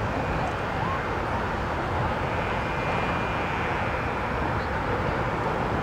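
Steady rushing noise of road traffic crossing the Golden Gate Bridge, with a low rumble and no distinct single events.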